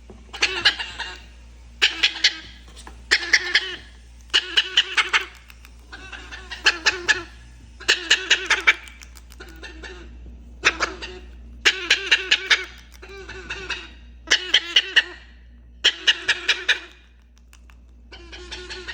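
Parrot making a laugh-like chuckling call over and over, short bursts of quick staccato notes repeated every second or so.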